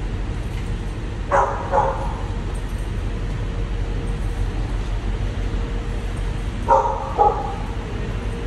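A dog barking in two pairs of short barks, one pair about a second in and another near the end, over the steady low drone of a ferry's enclosed vehicle deck.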